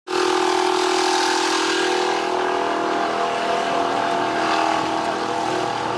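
A steady mechanical drone with a constant hum, of the engine kind.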